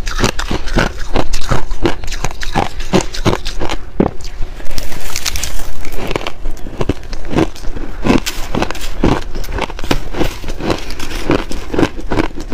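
Close-miked chewing of shaved ice: crisp crunches at about three a second. About five seconds in there is a brief grainy scrape as the metal spoon scoops through the ice.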